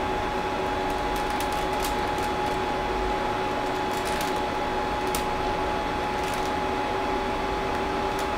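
Steady whir and hum of a switched-on Creality CR-10S Pro 3D printer standing idle, with two steady tones and a few faint clicks.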